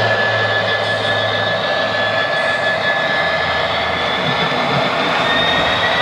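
Model train of grey bogie box wagons rolling along the track: a steady rolling noise with faint high whining tones that slide slowly in pitch.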